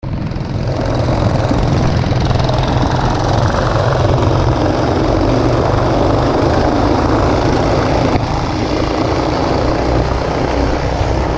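Several go-kart engines running together as a pack of karts laps the track, a steady, noisy engine sound.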